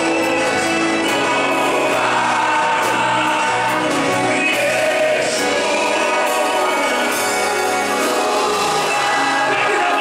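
Live gospel worship song: a male singer singing into a microphone over sustained instrumental backing with a steady bass line.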